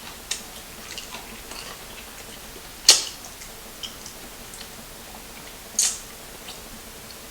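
Close-up eating sounds: scattered small wet mouth clicks and smacks from chewing, with two louder sharp sounds about three and six seconds in.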